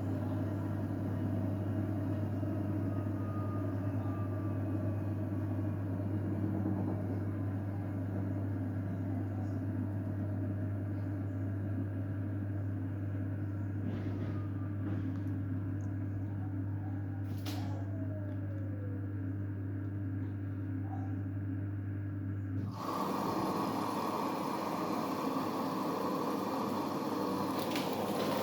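Siemens iQ700 washing machine running with a steady low hum. The hum cuts off abruptly about 23 seconds in and gives way to a broader rushing noise that grows louder near the end.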